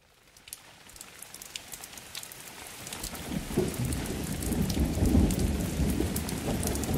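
Rain falling, with scattered sharp drop ticks, fading in from silence and growing louder; a low rumble of thunder builds from about three seconds in.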